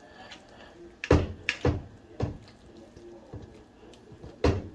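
A metal pot knocking against a ceramic plate as corn cobs and vegetables are tipped out of it and drop onto the plate. There is a run of sharp knocks from about one to two and a half seconds in, a softer one later, and another loud knock near the end.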